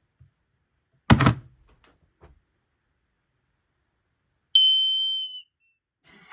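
A loud thump about a second in, then a single electronic beep from the Kidde TruSense 2070 smoke and CO alarm's sounder: one high tone held for just under a second, fading toward its end. This is the alarm's dying sound as its power is cut.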